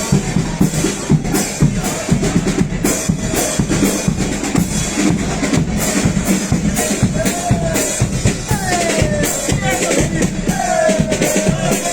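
A carnival comparsa's drums, bass drum and snare, beating steadily, with voices singing or calling over them in the second half.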